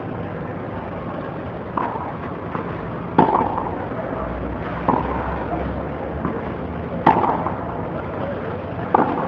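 Tennis rally: rackets striking the ball with a sharp pock about every two seconds, five hits in all, the loudest about three and seven seconds in, with fainter ball bounces on the clay between them, over steady background hiss.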